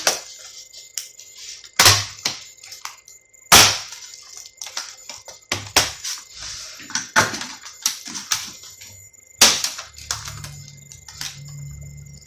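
Sharp cracks and snaps of plastic, about half a dozen loud ones with smaller clicks between, as a laptop's internal keyboard is pried and peeled out of the plastic top case. The keyboard is held in by melted plastic rivets, which tear as it comes away.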